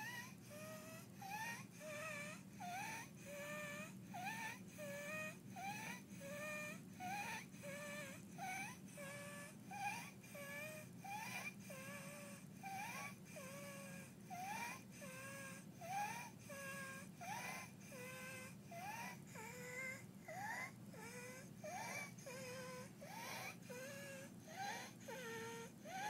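Young child with croup breathing in sleep with stridor: a high-pitched squeaky crowing on each breath that rises in pitch, repeating regularly a little over once a second.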